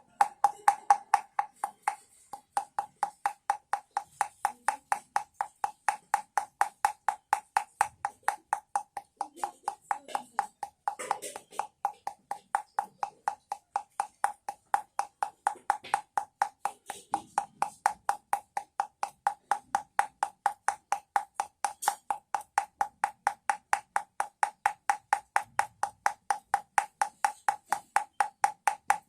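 Baby rattle shaken in a steady rhythm: an even run of hollow knocking clicks, about three to four a second, each with a short ringing note.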